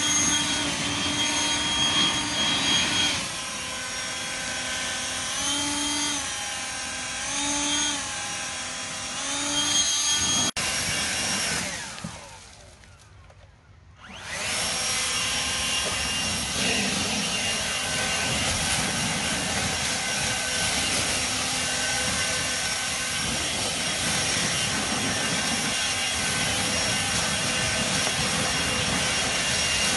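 Hart 40-volt brushless turbo fan leaf blower running, its fan whine rising and falling with the trigger several times in the first ten seconds. The sound drops away almost completely for about two seconds around twelve seconds in, then the blower comes back at a steady pitch.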